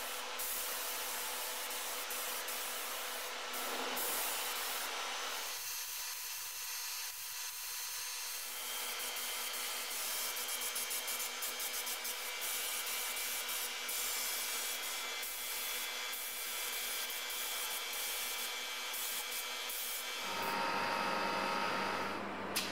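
Compressed-air gravity-feed spray gun hissing steadily as it sprays metallic basecoat paint, with short breaks in the hiss. The sound shifts in character a few times along the way.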